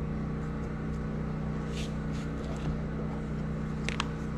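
Steady low mechanical hum of workshop background machinery, with a few faint ticks of small metal carburetor parts being handled. Just before the end comes a sharper click as the lid comes off a plastic grease tub.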